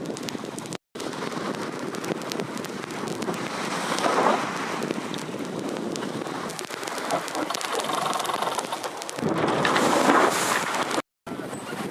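Wind buffeting the microphone and water rushing and spraying over the deck of a VO65 racing yacht under sail, with louder surges of spray about four seconds in and again near the end. The sound breaks off briefly twice at edits.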